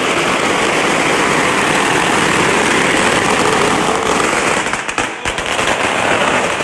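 Firecrackers going off in a continuous dense crackle, with a quick run of sharp bangs about five seconds in.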